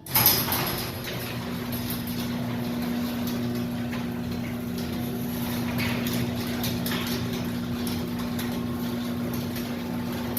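Electric garage door opener raising the door: it starts abruptly, then its motor runs with a steady hum under the clatter of the door moving along its tracks.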